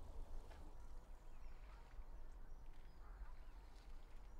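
Faint outdoor ambience: a few distant waterfowl calls, heard about half a second in and again about three seconds in, over a steady low rumble.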